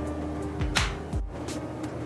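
Background music: sustained tones with a few percussion hits.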